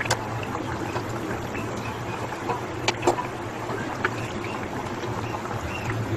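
Spiced fish broth simmering in a pan on a gas stove: steady bubbling over a low hum, with a few sharp pops about three and four seconds in.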